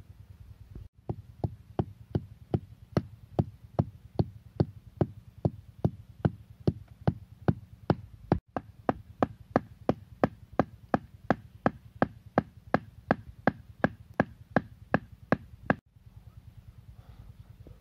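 Wooden stakes being pounded into the ground with a wooden club: dull, even knocks at about two and a half a second, which stop shortly before the end.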